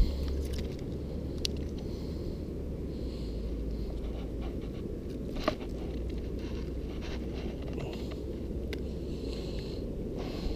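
Wind rumbling on the microphone, with a few faint clicks and scrapes as a hook is worked out of a freshly caught bass's mouth.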